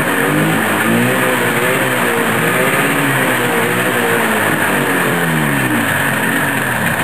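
1973 Arctic Cat Panther 440 snowmobile's two-stroke engine running loudly on its first start after restoration, its speed rising and falling unevenly.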